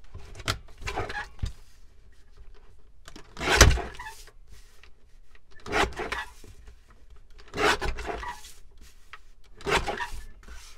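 Sliding paper trimmer cutting paper: the blade carriage is run along the rail in several short strokes about two seconds apart, the loudest about three and a half seconds in, with paper being shifted between them.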